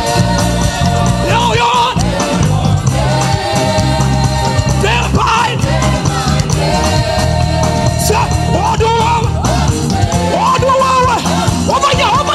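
Live church praise music: a band with drum kit, electric guitar and a steady bass line playing an upbeat song, with voices singing along.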